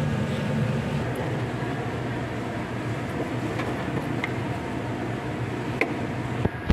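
Steady low mechanical hum, like a fan or air-conditioning unit running, with a couple of faint clicks near the end.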